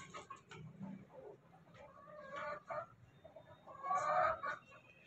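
Chickens clucking in short calls while they peck at scattered feed, with a burst of calls about two seconds in and another about four seconds in.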